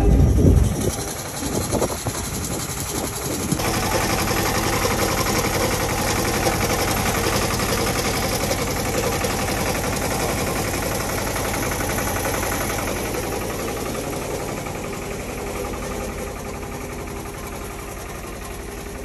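Engine idling steadily with a fast, even clatter, coming in about three and a half seconds in after a short, quieter stretch of scattered knocks.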